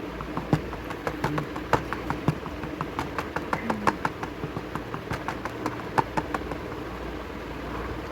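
Irregular clicks and taps of a plastic blister pack being handled and worked open, a few louder ones among many light ones, thinning out near the end, over a steady low hum.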